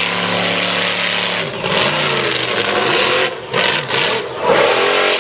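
Monster truck engine revving. It holds a steady note at first, then the pitch falls and rises several times in the second half as the truck climbs onto a crushed car.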